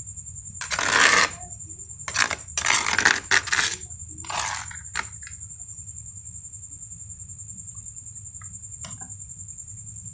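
Metal kitchen utensils clattering and clinking against the aluminium cooking pot in a few loud, short bunches during the first five seconds. A steady low hum and a faint high whine run underneath.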